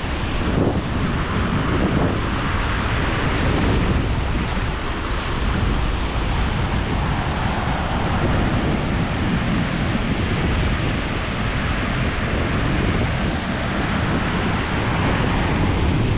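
Small waves breaking and washing over the shallows, with wind buffeting the microphone as a steady low rumble.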